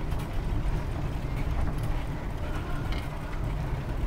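Wind buffeting the microphone of a camera riding on a moving bicycle: an uneven low rumble, with a few faint rattling clicks.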